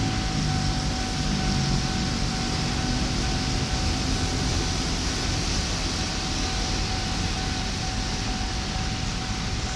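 Diesel-electric locomotive approaching under power: a low engine rumble with a steady rushing noise of the train, and a faint steady tone above it.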